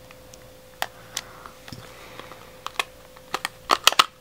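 Small plastic clicks and taps from a lip lacquer tube being handled: a scattering of sharp clicks that come thicker and louder near the end.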